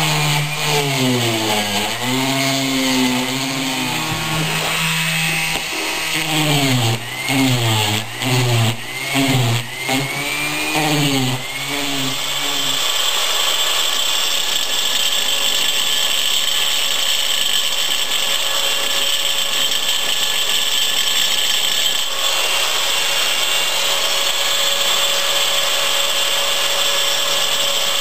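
Hand-held electric power tool working stone. For about the first twelve seconds its motor pitch dips and recovers again and again as it is pressed into the work. It then runs steadily with a hissing grind.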